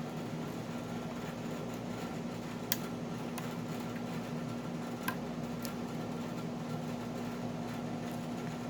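Steady low hum, like a fan, with a few faint sharp clicks, two of them clearer, from a lock pick working the pin stack of a Wilka euro cylinder under heavy tension.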